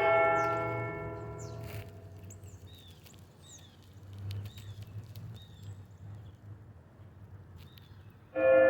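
Church bell struck once, ringing and fading away over about two seconds; small birds chirp during the lull that follows, and another bell strike rings out near the end.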